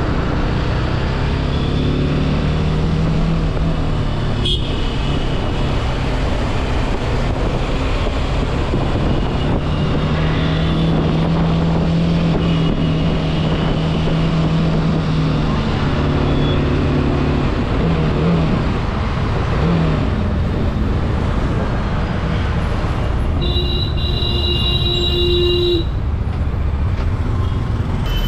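BMW sport motorcycle's engine running on the move, its pitch rising and falling with the throttle, over a steady rush of wind and road noise in city traffic. A horn sounds for about two seconds near the end.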